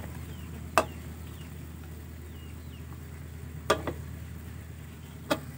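Metal ladle stirring instant noodles simmering in a metal wok, knocking sharply against the pan three times, over a steady low hum and faint bubbling.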